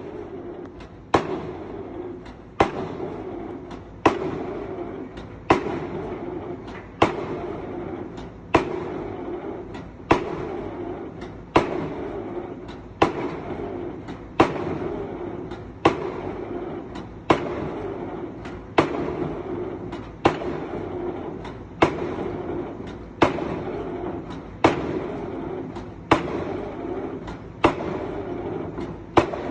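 Excavator-mounted drop hammer striking at a steady pace, one sharp blow about every second and a half, each followed by a short ringing decay. A steady engine hum runs underneath between blows.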